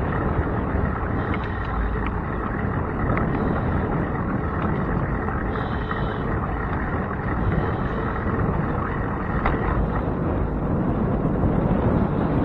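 Wind buffeting the microphone of a handlebar-mounted camera on a moving bicycle, a steady rumbling rush with road noise underneath and a few faint ticks.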